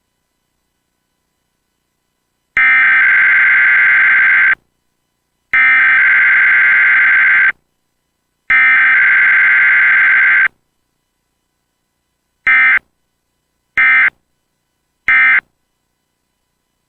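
Emergency Alert System weekly test data tones: the screeching digital SAME header burst sent three times, each about two seconds long and a second apart, then three short end-of-message bursts.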